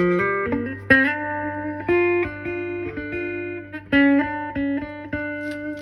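Electric guitar played with a clean tone through a solid-state Fender Studio 85 amplifier: a few plucked chords and single notes, each struck about once a second and left ringing.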